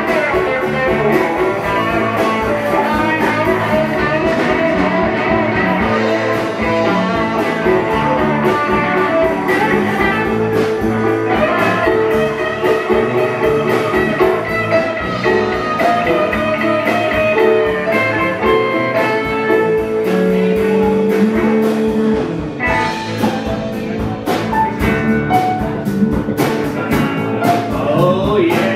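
Live band playing: electric guitars and keyboards over drums. The playing thins out for a few seconds about three-quarters of the way through.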